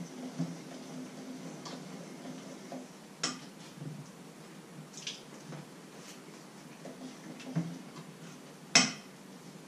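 Metal kitchenware clattering: a utensil knocking against a steel bowl and pans in a few separate clinks, the sharpest clank near the end, over a low steady hum.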